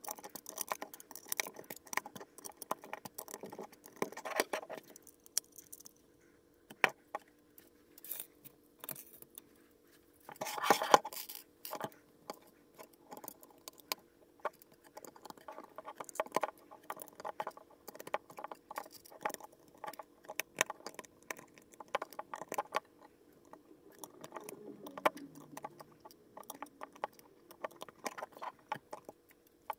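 Plastic LEGO bricks and plates clicking and clattering as loose pieces are handled and pressed onto a build, with a louder rattle of loose pieces about ten seconds in. A faint steady hum sits underneath.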